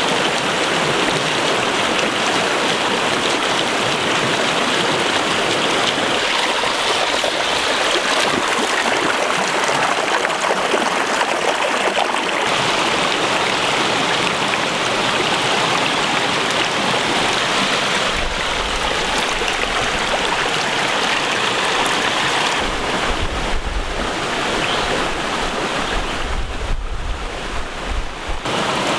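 Steady rush of a rocky stream running over stones and boulders. A low rumble joins it for the last ten seconds or so.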